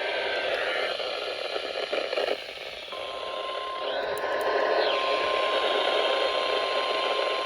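Weather radio receiver hissing with static, with a few brief crackles about two seconds in. About three seconds in, the steady single-pitch NOAA Weather Radio warning alarm tone (1050 Hz) starts and holds, the signal that a new warning is about to be read.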